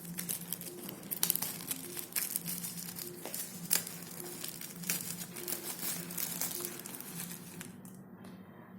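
Plastic shrink-wrap being torn and peeled off a phone's retail box, crinkling with many small sharp crackles that die away shortly before the end.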